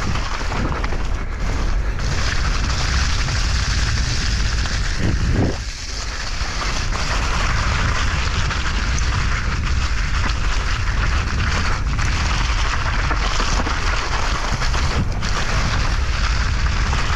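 Loud, steady wind rushing over the microphone, with a brief dip about six seconds in.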